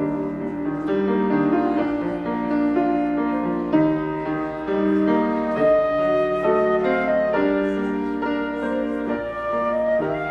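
Slow instrumental music on piano, with held notes and chords that change about once a second.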